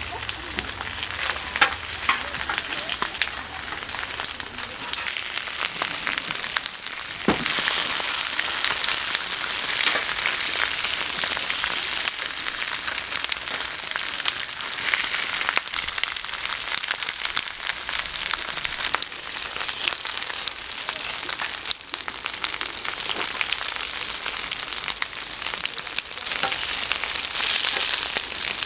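Pork offal sizzling and frying on a large flat iron griddle, a steady hiss that grows louder about seven seconds in, with scattered sharp clicks and a single knock at that point.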